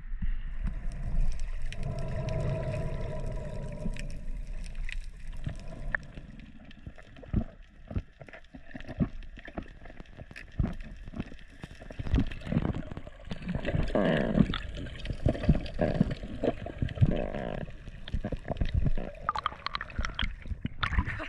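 Underwater sound picked up by a submerged action camera: water movement and gurgling bubbles over a low rumble, with many scattered sharp clicks and knocks. A louder stretch of muffled, wavering sound comes about two-thirds of the way through.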